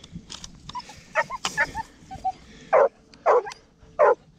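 Leashed hunting hounds yelping and whining in short calls, with three loud yelps in the second half, excited and straining after a hare they have sighted.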